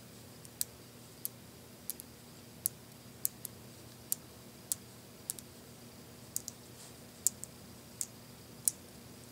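Small neodymium magnet spheres (Buckyballs mixed with Zen Magnets) clicking as they snap against each other between the fingers while a strand is wrapped around a cluster. The clicks are sharp and irregular, one or two a second.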